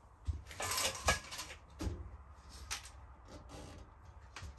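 A few scattered light knocks and a brief rustle, handling noise in a small room.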